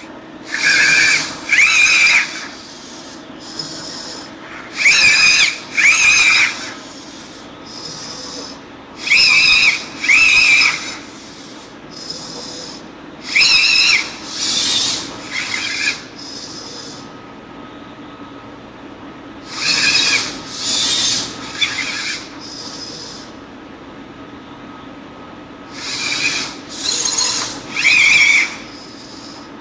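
Dynamixel servos in a robotic hand whirring in short, high-pitched bursts of about a second as the fingers move into each gesture. The bursts come in sets of two or three, with pauses of a few seconds between sets.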